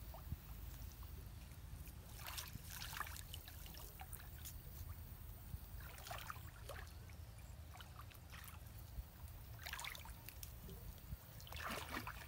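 Water dripping and splashing off a gill net as it is lifted out of a canal and let back in, in about four short bursts a few seconds apart, over a steady low rumble.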